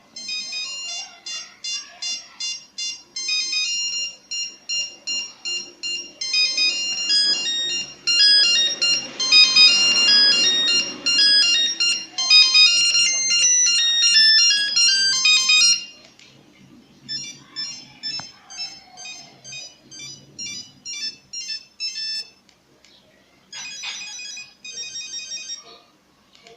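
Nokia 1100 mobile phone playing its monophonic ringtones: fast melodies of short, bright beeping notes. One loud tune stops about sixteen seconds in, then a quieter, different tune follows, and a third short one comes near the end.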